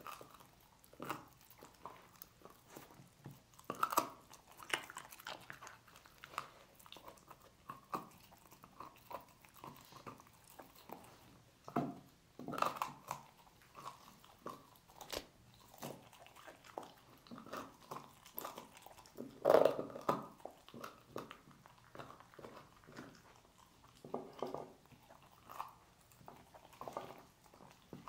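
A dog chewing and crunching on pork trotter bones: irregular gnawing with sharp cracks, the loudest about four, twelve and twenty seconds in.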